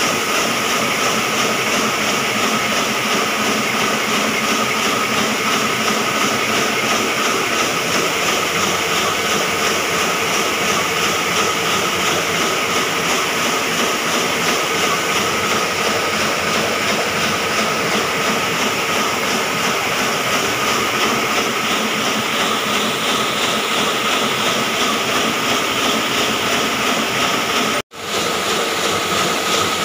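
Komori sheet-fed offset printing press running, a steady loud mechanical clatter with a fast even rhythm. The sound cuts out for an instant near the end.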